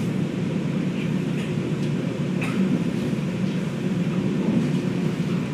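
Chicago 'L' Brown Line elevated train running, heard from inside the car: a steady low rumble of wheels on the track, with a few faint short clicks.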